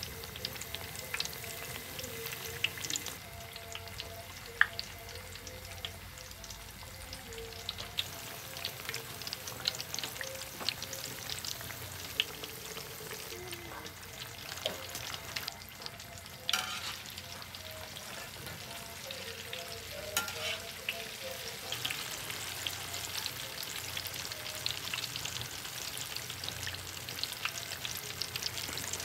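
Carrot slices deep-frying in a wok of hot oil: a steady sizzle with many small pops and crackles.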